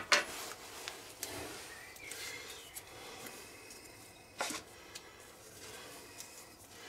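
Light handling sounds at a workbench: a sharp click at the start, a small tap after about a second and a half, and a clear knock about four and a half seconds in, with faint rustling between, as green tape is wrapped onto the end of a tractor steering shaft.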